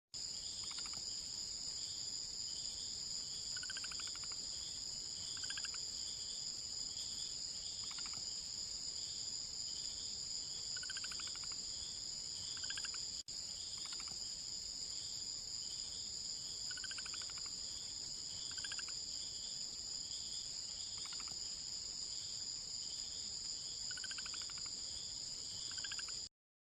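A steady, high-pitched insect trill like a chorus of crickets, with short bird chirps recurring every second or two over it. The sound drops out for an instant about halfway through.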